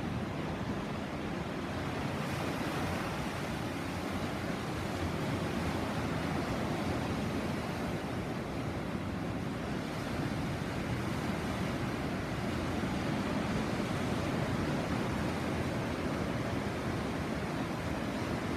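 Sea surf washing steadily on the shore, a continuous rush with gentle swells in loudness and some wind on the microphone.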